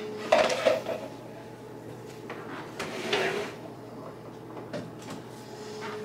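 Short clatters and knocks of hands handling an opened Keurig coffee maker and its power cord as it is plugged in, with two louder bursts, one just after the start and one near the middle.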